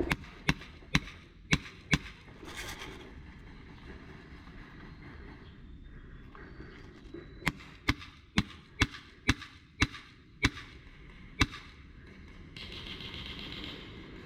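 Airsoft gun firing single shots as sharp cracks: five in quick succession at the start, then after a pause eight more at about two a second.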